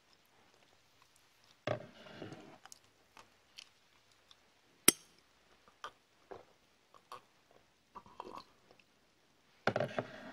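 Close-miked ASMR mouth sounds of sipping and gulping a drink from a glass mug: a short slurping burst about two seconds in, another near the end, with one sharp click halfway through and scattered small clicks between.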